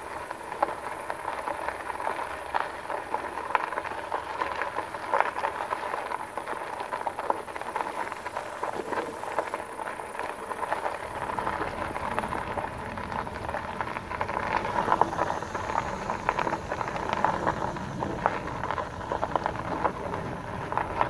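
Fat tyres of a RadRover electric bike crunching and crackling over a dirt-and-gravel track at walking pace, a dense patter of small ticks from grit under the tyres. A low rumble joins about halfway through.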